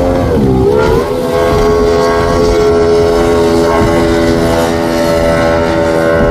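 Speedboat engine running hard at high revs as the boat planes at speed. Its pitch dips briefly about half a second in, then comes back up and holds steady.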